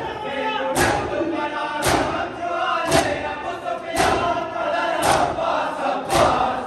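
A crowd of men performing matam, striking their bare chests with open hands in unison: a sharp slap about once a second, with loud group chanting between the strokes.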